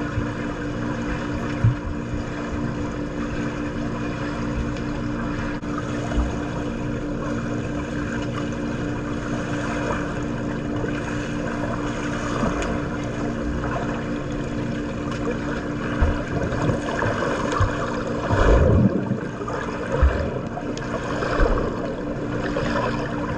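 Water sloshing and splashing over a steady mechanical hum, with scattered low thumps that come most often about three-quarters of the way through.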